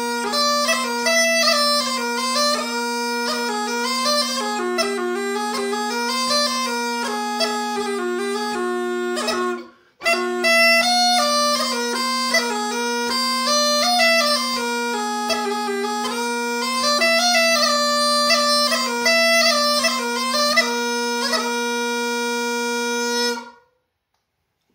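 Swedish bagpipe (säckpipa) with a copy of the Mockfjärdspipa chanter, playing a lively folk wedding-march melody over a steady drone. The pipe breaks off for a moment about ten seconds in, then plays on and ends on a held note, falling silent near the end.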